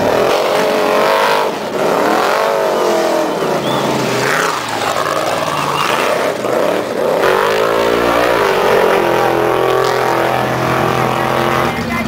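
Off-road race vehicle engines revving hard, their pitch sweeping up and down again and again, then settling into a steady idle over the last few seconds.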